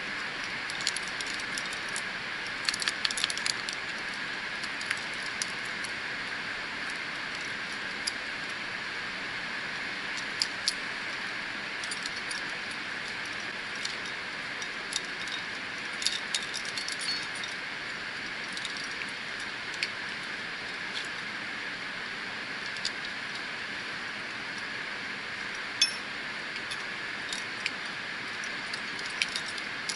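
Metal climbing gear clinking on a climber's harness, carabiners and quickdraws knocking together in scattered small clusters as she climbs, over a steady hiss.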